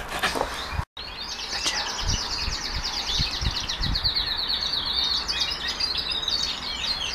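Birds chirping and twittering in rapid runs of high notes in the background, with a few soft low thumps close by. The first second holds quick clicks before a short break to silence where the clip cuts.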